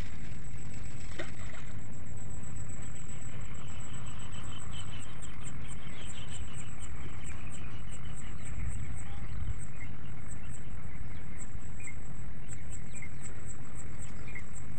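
Insects singing: a steady high-pitched trill with short pulsed chirps repeating at a few per second, coming and going. Wind rumbles on the microphone underneath.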